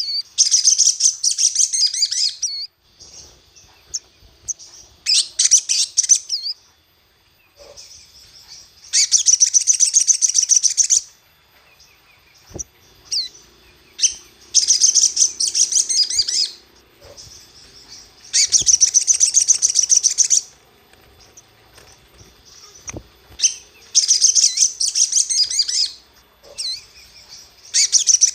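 Sogok ontong (sogon) sunbird singing: bursts of rapid, high twittering about two seconds long, repeated every few seconds with short pauses between. It is played as a 'pancingan' provoking call, meant to stir other birds of its kind into singing.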